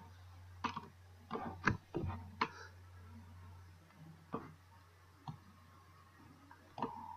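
Irregularly spaced clicks of a computer mouse and keyboard, about nine over the stretch, over a low steady hum that fades out about four seconds in.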